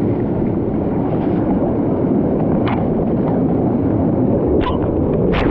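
Loud, steady rush of water from a mountain canyon torrent close to the microphone, with a few brief sharp splashes near the end.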